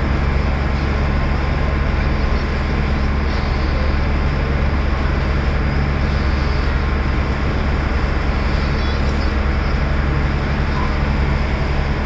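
Passenger boat's engine running with a steady low drone, with a constant rushing noise over it.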